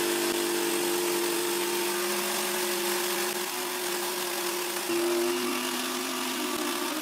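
Bosch jigsaw running steadily, its blade cutting a curved line through 15 mm plywood, with a brief louder surge about five seconds in.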